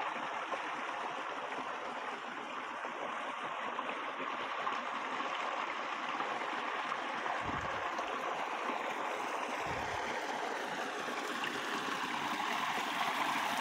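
Muddy water flowing steadily along a small grass-banked irrigation channel, a continuous rushing and gurgling; the water is storm runoff after thunder up in the heights. Two dull low bumps come about halfway through.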